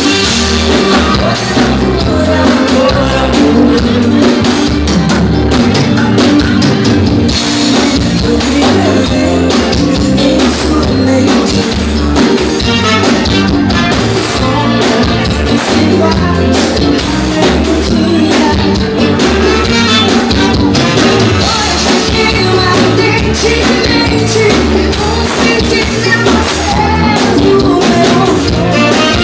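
Live band playing brega: a woman singing over electric guitar and drum kit with a steady beat, recorded loud from the audience.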